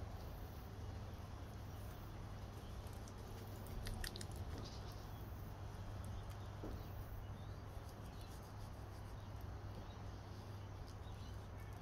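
Knife cutting through the hard attachment of a giant cuttlefish wing flap on a wooden cutting board: faint, scattered small clicks and crackles over a steady low hum.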